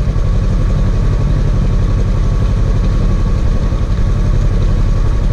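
Side-by-side UTV engine idling steadily, its fast even firing pulses unchanged throughout.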